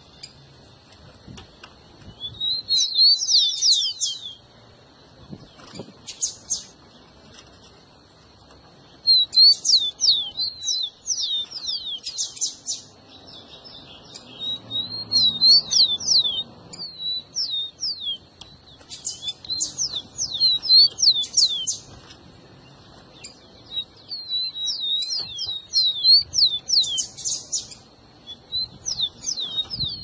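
Rufous-collared sparrow (tico-tico) singing in repeated bouts of quick, downward-sliding high whistles, about six bouts with short pauses between, over a faint steady high tone.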